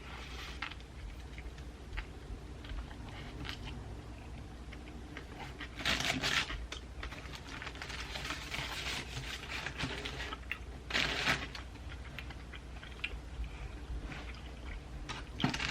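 Close-miked biting and chewing of a Subway ham-and-cheese footlong, with louder crunching bursts about six and eleven seconds in, over a steady low hum.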